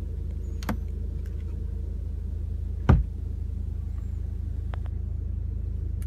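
Steady low hum of the Audi TT's 2.0-litre turbocharged four-cylinder idling, heard from inside the cabin. A faint click comes early and a single dull thump about three seconds in.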